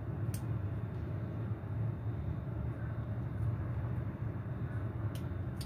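Steady low hum of background noise, with a few faint clicks.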